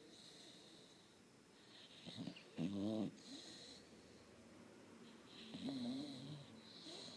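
A sleeping pet snoring. There are two loud, wavering snores about three seconds apart, with softer breathy hisses between them.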